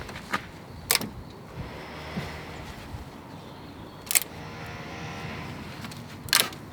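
Four sharp clicks and knocks of metal parts and tools being handled during cylinder head work, over a low steady hum; the loudest comes about four seconds in.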